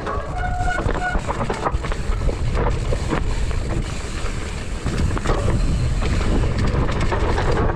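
Wind buffeting the microphone of a camera on a mountain bike going down a trail, with constant rattling and knocks from the bike over rough ground. A brief high tone sounds about half a second in.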